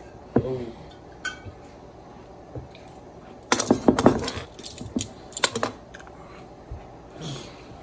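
Metal kitchen tongs clinking against a large glass pickle jar and clattering onto the table: a few single clicks, then a quick run of sharp clinks about three and a half seconds in and a few more around five seconds.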